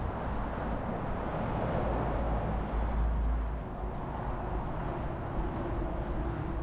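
Wind rumbling on a chest-mounted GoPro's microphone during a run, over steady outdoor noise that swells about halfway through, with faint regular ticks from the running stride.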